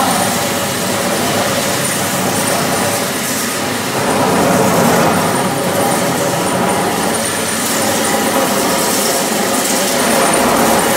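Wet floor-grinding machine running, its three-phase electric motor spinning the grinding stones over a stone floor fed with water: a loud, steady grinding drone.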